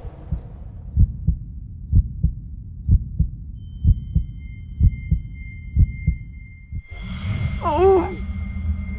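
Heartbeat sound effect: paired low thumps, lub-dub, about once a second over a low drone, stopping about seven seconds in. A steadier drone with a brief wavering tone follows near the end.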